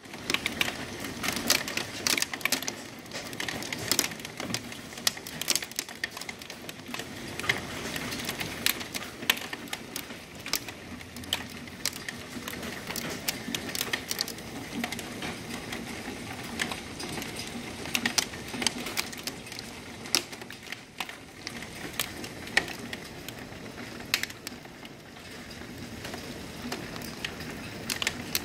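Hailstorm: hailstones striking a hard surface in many irregular sharp clicks over a steady hiss.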